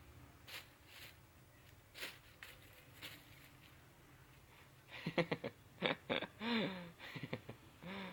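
A person's voice making short vocal sounds from about five seconds in, several brief bending sounds close together, after a few faint taps.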